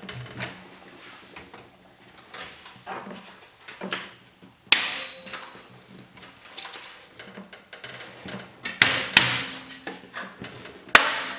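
Sharp clicks and knocks of plastic and metal computer-case parts being handled and pressed into place, the loudest about five seconds in, a cluster around nine seconds, and one near the end.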